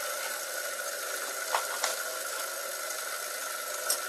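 A few light metallic clicks as small aluminium lever parts and screws are handled against one another on a wooden workbench, heard over a steady hiss with a faint high whine.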